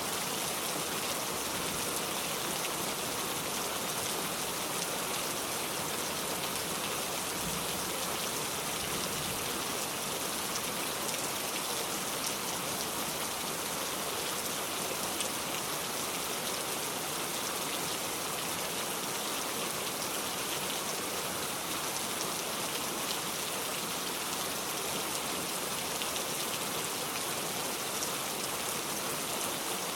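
Steady rain falling, an even hiss with fine scattered drop ticks and no change in intensity.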